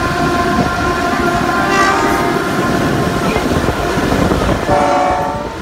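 Diesel locomotive horn sounding a sustained multi-note chord as a coal train's diesel locomotives pass, over the rumble of engines and wheels on the rails; the horn stops about two seconds in, and a shorter, lower horn blast sounds near the end.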